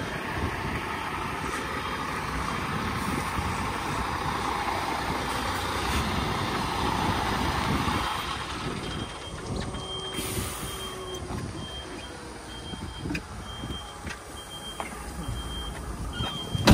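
A truck's engine running, with a reversing alarm beeping steadily about once a second from about halfway through. There is a short hiss of air about ten seconds in.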